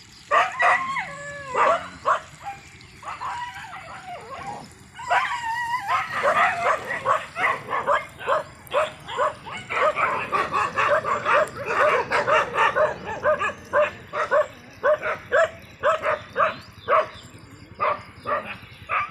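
Several dogs barking and yelping, with a few rising and falling yelps in the first two seconds, then a dense run of quick, overlapping barks from about six seconds in.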